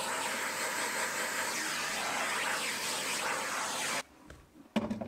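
Cordless drill spinning a countersink bit into the screw holes of a wooden drawer front, a steady whirring hiss that cuts off abruptly about four seconds in. A single short click follows near the end.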